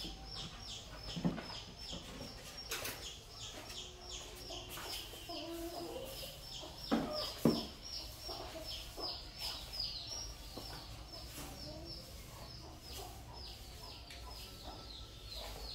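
Birds chirping: a steady run of short, high, falling chirps, about three a second, with a few louder knocks in between.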